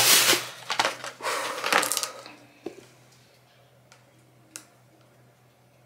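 Handling noise: clothing rubbing and rustling against the microphone for about two seconds, then a few light clicks and taps as a cardboard pregnancy-test box is handled, over a faint steady hum.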